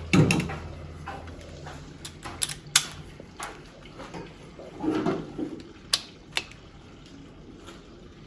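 Scattered sharp metallic clicks and knocks from hand tools on the engine as bolts are torqued down.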